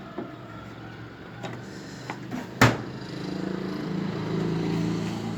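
A few knocks and clatters from handling the washing machine's drum and tub, the loudest a sharp knock about two and a half seconds in, followed by a steady low hum that grows slightly louder.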